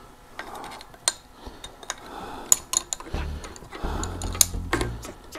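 Small metal tools and bike parts clinking and tapping as they are handled, in scattered sharp clicks. Background music with a low bass line comes in about three seconds in.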